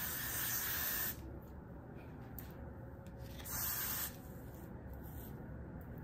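Got2b Glue aerosol hairspray hissing in two bursts: one of about a second, then a shorter one about three and a half seconds in.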